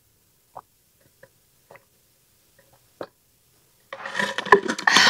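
Faint gulps and small clicks as a woman sips from the spout of an insulated drink bottle. About four seconds in, a much louder, dense clatter of clicks and rustling sets in as the bottle's lid comes off.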